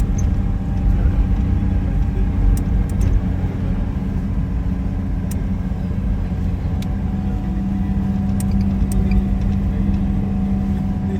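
A car driving at steady speed, a constant engine drone and road rumble with a few small clicks and rattles.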